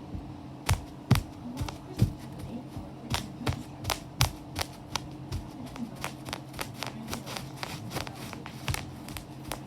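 Bubbles being popped one after another: a string of sharp pops, irregular at a few a second, the loudest about one, two and four seconds in, over a steady low hum.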